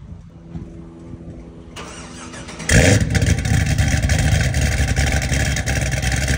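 Cadillac CTS-V's supercharged V8 started by remote start: it cranks and catches suddenly a little under three seconds in with a brief loud flare, then settles into a steady, loud idle through the exhaust.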